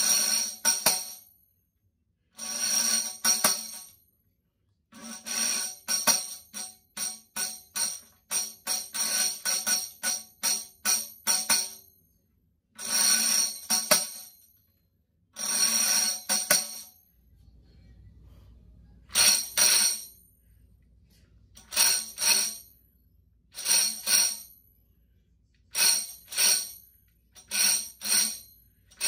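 Headed tambourine with metal jingles played solo: rolls about a second long alternate with runs of quick single strikes, each stroke leaving a bright jingle ring, with brief pauses between phrases.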